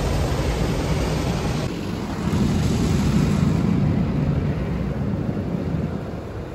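Automatic car wash machinery running over a car: a steady rushing noise with a low rumble that swells a little over two seconds in.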